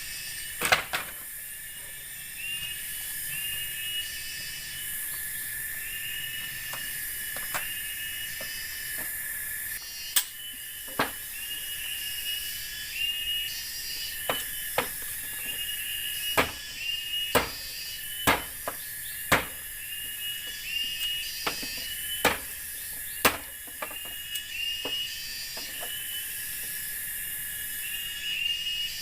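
Forest insects in a steady chorus: a high unbroken drone with rows of repeated chirps and pulsing trills above it. About a dozen sharp knocks or clicks are heard among them, one near the start and most of them through the middle.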